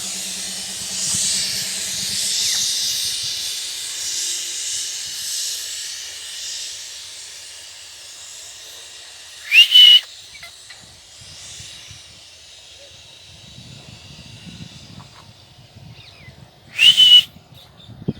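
Two short, loud, harsh screeches of a rose-ringed parakeet, one about halfway through and one near the end, each a quick double call. Before them a steady hiss fades away over the first several seconds.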